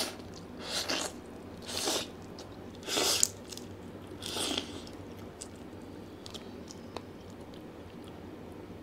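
Close-up eating of a butter-garlic giant freshwater prawn held in the hands: four noisy bites about a second apart, then only faint small clicks of chewing.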